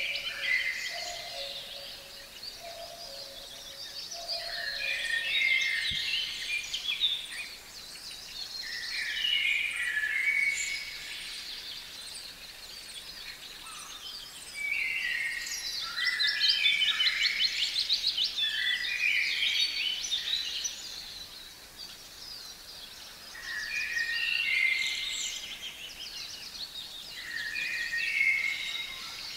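Songbirds singing in the open: song phrases of a couple of seconds each, every few seconds, busiest around the middle, with a low two-note call repeated several times in the first few seconds.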